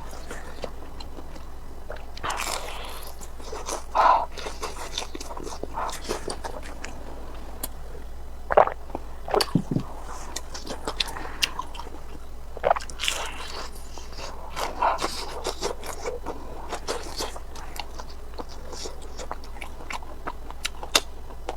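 Close-miked eating of crispy fried chicken cutlet: bites and irregular crunching and chewing, with occasional louder crunches.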